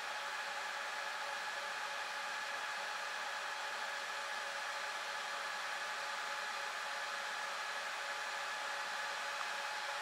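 Dell PowerEdge 2650 server's cooling fans running steadily: a constant rushing whir with a few steady whining tones over it.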